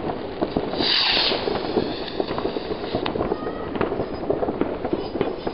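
Ground-level fireworks crackling: a dense, fast run of small firecracker pops, with a short hiss about a second in and a few louder cracks scattered through.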